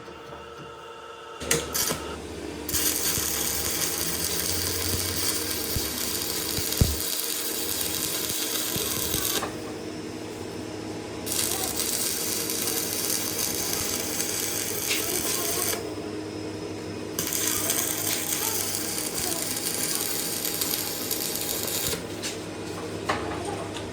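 Electric arc welding: three long stretches of steady hissing noise, each several seconds and starting and stopping abruptly, over a low machine hum, with a single sharp knock partway through.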